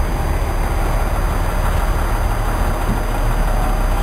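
Bus engine idling close by, a steady low rumble, over the noise of a queue of stopped traffic.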